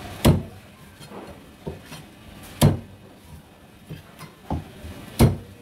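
Heavy knife chopping through stingray into a thick wooden chopping block: three hard chops about two and a half seconds apart, with lighter knocks between.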